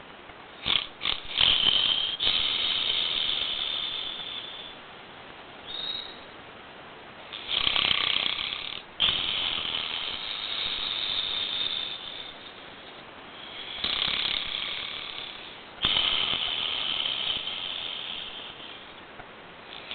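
A man snoring in a drunken sleep: long snoring breaths about every six seconds, each in two parts with a sharp break between them, and quieter pauses in between.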